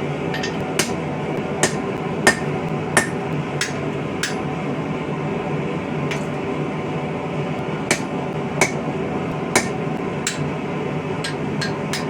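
Hammer striking a chisel to cut lines into a mild-steel star blank: sharp metallic strikes, irregular, about one or two a second, with a pause of about two seconds midway, over a steady hum.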